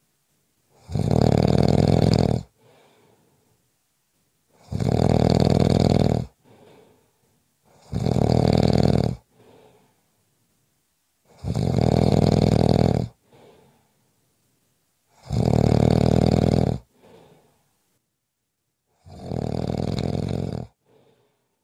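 A person snoring in a steady rhythm: six long snores, one every three to four seconds, each about a second and a half long and followed by a fainter short sound. The last snore, near the end, is softer.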